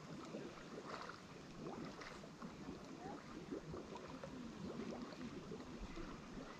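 Pond water splashing and bubbling steadily where fresh water wells up into the pond, with a light breeze.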